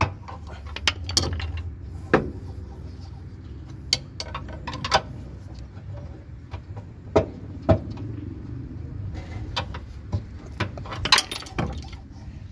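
Irregular metallic clinks and knocks as a pry bar levers a stuck front lower control arm out of a Honda Accord's suspension, working it side to side.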